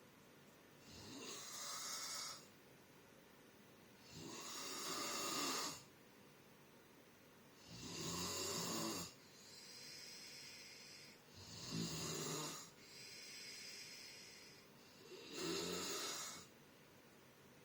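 A sleeping person snoring: five loud snores, about one every three to four seconds, each lasting a second or so. Between the later snores come softer breaths with a faint whistle.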